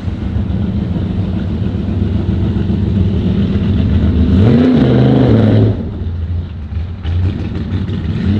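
Car engines running in street traffic. One engine revs up about four seconds in, holds, then drops away abruptly near six seconds, and another revs up near the end.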